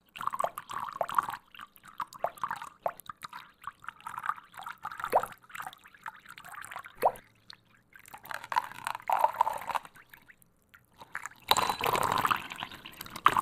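Water dripping in a run of short separate drips, then a denser rush of water about eleven and a half seconds in, like water pouring or spilling from a glass.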